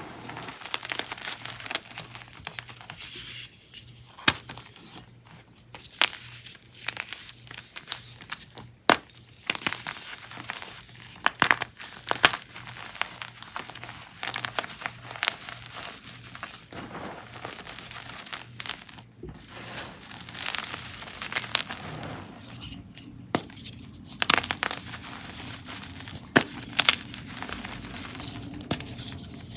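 Blocks and chunks of gym chalk being crushed, crumbling and crunching in an irregular run of crackles and sharp snaps.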